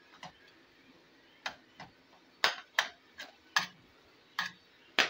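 Metal ladle knocking and scraping against a metal karahi while stirring chopped tomatoes cooking down in oil: about ten irregular clinks, louder and closer together from about halfway through.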